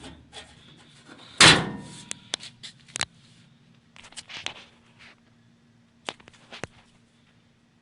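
Sheet metal on a truck cab being handled: one loud bang with a short ringing tail, followed by several lighter knocks and clicks.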